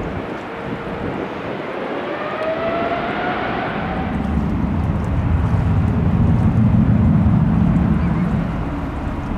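Airbus A330-300 on its landing roll: a rising whine as the jet engines spool up, then a loud low rumble of reverse thrust building from about four seconds in and easing off near the end.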